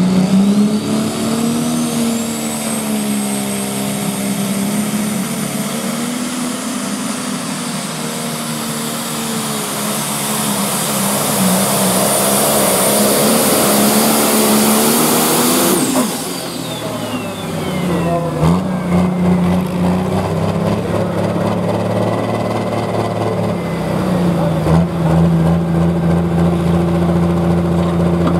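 John Deere pulling tractor's turbocharged engine at full throttle under the load of the sled, its pitch wavering, with a high turbo whine that climbs in the first few seconds. About sixteen seconds in the throttle comes off abruptly, the turbo whine falls away over a few seconds, and the engine settles to a steady idle.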